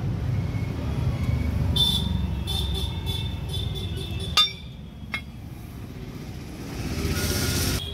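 Low rumble of a motor vehicle running nearby, which stops abruptly at a sharp loud click about four seconds in. A lighter click follows, then a brief rushing noise near the end.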